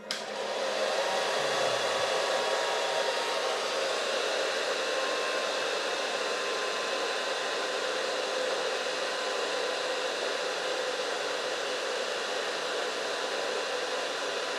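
Blower fan of a 12 V car heater running steadily on direct solar power, a constant rush of air with a faint steady motor hum underneath.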